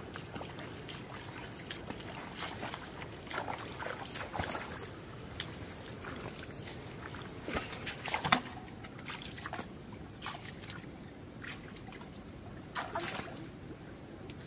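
Water sloshing and splashing in short, irregular bursts, loudest a little past the middle.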